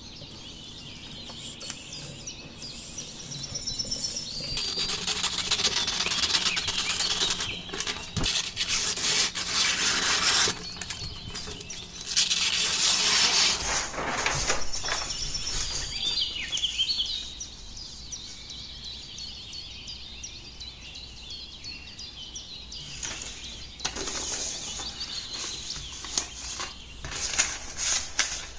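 Paper rustling and scraping as cut strips of drawing paper are handled and laid down, loudest through the first half, with occasional bird chirps in the background.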